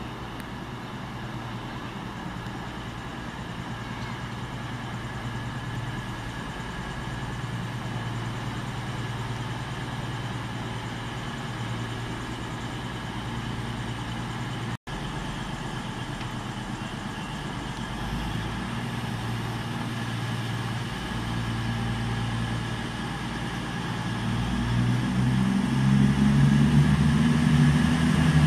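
Diesel engines of a Voyager diesel multiple unit drawing into a station: a steady low engine drone that grows louder as the train nears, loudest over the last few seconds.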